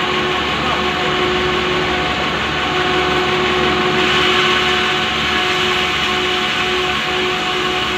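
Motorized saw running steadily under load while cutting lengthwise through a large pulai log, with a slight brightening of the cutting noise about halfway through.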